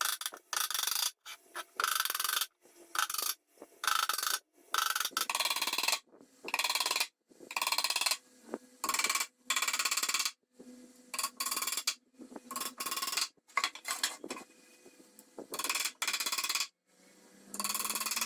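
Repeated rasping strokes of a hand tool working wood, about one stroke a second with short pauses between them.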